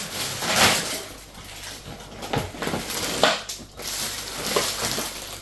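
Plastic shopping bags and food packaging rustling and crinkling as groceries are handled and unpacked, with a few sharper crackles.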